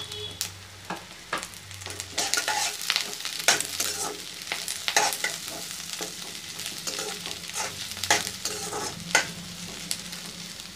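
Onion and capsicum stir-frying in hot oil in a metal kadai, with a steady sizzle. A steel spatula scrapes and clacks against the pan in irregular strokes.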